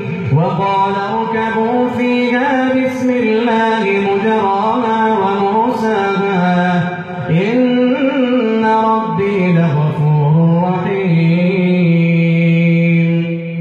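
One man's voice reciting the Quran in a slow, melodic chant into a microphone. He holds long notes with ornamented bends in pitch and breaks briefly for breath about seven seconds in.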